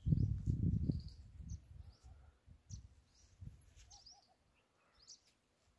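Small birds chirping in short, high calls scattered throughout. Over the first second or so there is a loud low rumble of wind buffeting the microphone, which then dies away.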